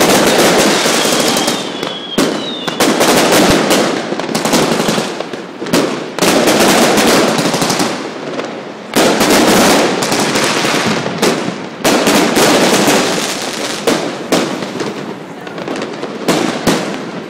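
Amateur fireworks and firecrackers going off in a dense, continuous barrage of bangs and crackling that swells and eases every few seconds.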